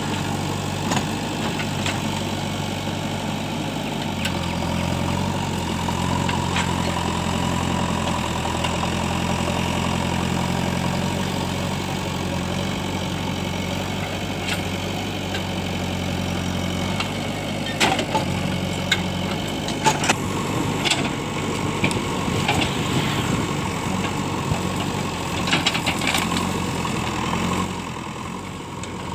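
JCB 3DX backhoe loader's diesel engine running steadily while the backhoe arm works through brush. The engine note changes about two-thirds of the way through, and sharp knocks and clatters of the digging come in from then on.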